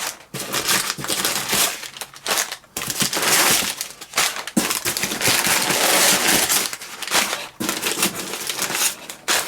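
Packing material in a cardboard box crinkling and rustling as it is handled and pulled away to unwrap a pipe, in uneven bursts with short pauses.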